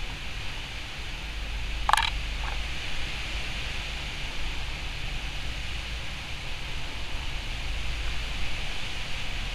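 Steady outdoor background hiss with a low rumble underneath. About two seconds in there is one short, sharp, high sound, followed half a second later by a fainter, shorter one.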